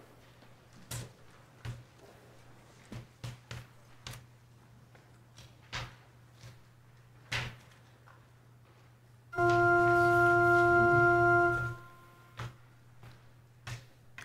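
Church organ sounding one held note for about two and a half seconds, steady and cut off sharply, giving the pitch for the chanted versicles. Before it come scattered small knocks and shuffles from the standing congregation.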